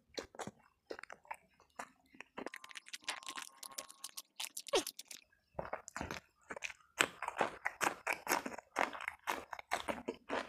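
Close-miked eating: chewing and crunching of fried fish and raw long beans in quick, irregular mouthfuls. The crunching gets denser and louder in the second half.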